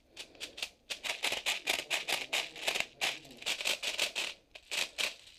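Hand-pumped airsoft BB speed loader feeding plastic BBs into a Tokyo Marui AA-12 magazine: a rapid, irregular run of clicks and rattles, several a second.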